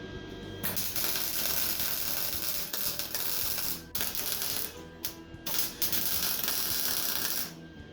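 Electric arc welder laying a weld bead on a steel mini bike frame: a steady crackling sizzle that starts about a second in, breaks off briefly a few times midway, and stops just before the end.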